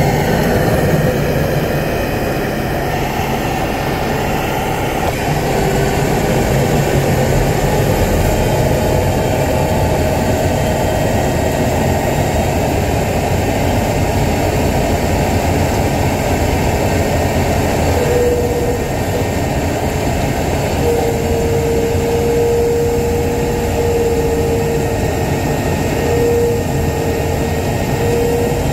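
Wirtgen W 120 XFi cold milling machine running under load, its diesel engine and cutting drum grinding up asphalt pavement in a steady heavy din. A thin steady whine comes and goes over it in the second half.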